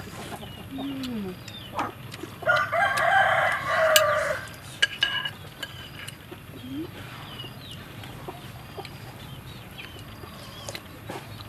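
A rooster crows once, a long call starting about two and a half seconds in, with a few shorter, softer chicken calls around it.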